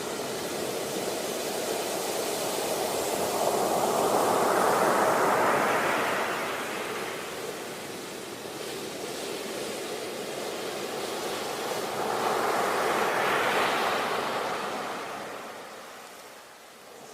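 Ocean waves breaking and washing on the shore, two waves swelling and fading, the second about eight seconds after the first.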